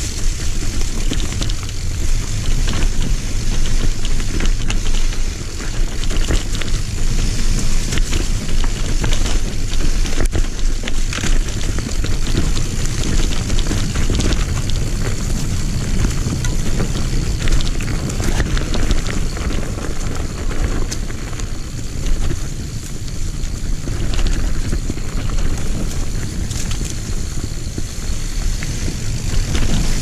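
Mountain bike riding fast down a dirt singletrack: wind rushing over the microphone, tyre noise on the dirt, and the bike rattling with frequent clicks and knocks.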